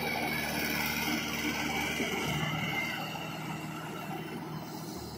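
Mahindra 475 DI tractor's four-cylinder diesel engine running steadily as the tractor works through deep mud in a flooded paddy field. Its sound eases down a little in the second half.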